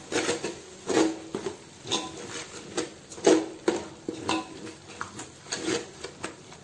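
Metal spoon scraping and knocking against a metal cooking pot as a thick spice masala is stirred, in irregular strokes about one to two a second.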